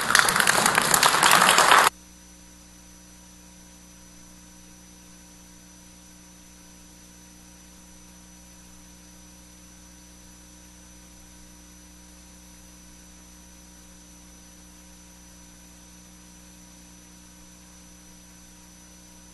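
Audience applauding, cut off suddenly about two seconds in. What remains is a low, steady electrical mains hum with a faint high-pitched whine.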